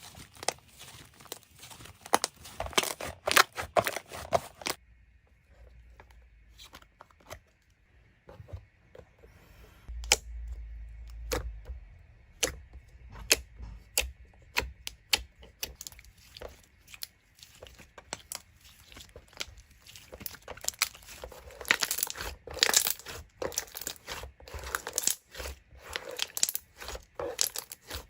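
Slime being squished and played with by hand: runs of small clicks and crackles, thick for the first few seconds, sparse through the middle, then dense again near the end.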